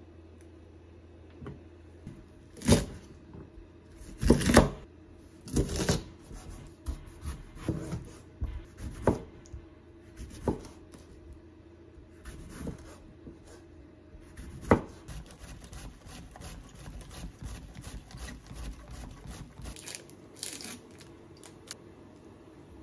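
Kitchen prep sounds: a few sharp snaps and knocks as green beans are strung and broken, a knife cutting through tomato onto a wooden chopping board, then quick small crinkles of plastic packaging as egg tofu is unwrapped.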